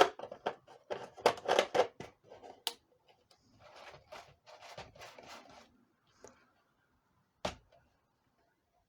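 Handling noise: a quick run of clicks and knocks, then a rustle, and one sharp knock about seven and a half seconds in.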